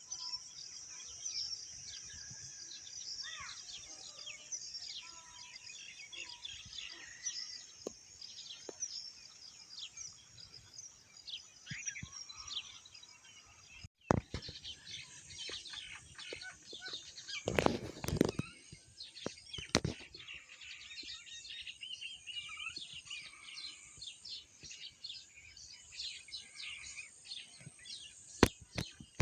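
Several small songbirds chirping and calling over and over in quick, overlapping short notes. About halfway through there is a loud rustling burst that covers the birdsong for about a second.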